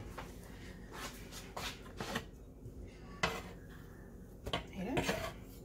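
A handful of light clinks and knocks of kitchen utensils and cookware, such as a metal spatula on a pancake griddle, spaced about a second apart.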